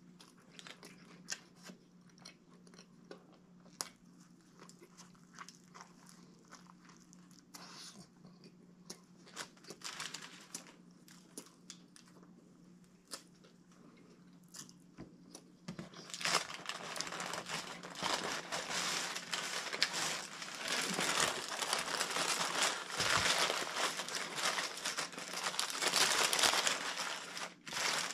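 Chewing and biting on a sub sandwich, with small clicks over a steady low hum. About halfway through, loud crinkling of sandwich wrapper paper being handled and crumpled takes over.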